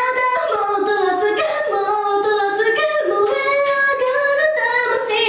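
A young woman singing a pop song unaccompanied, holding long notes that step up and down in pitch.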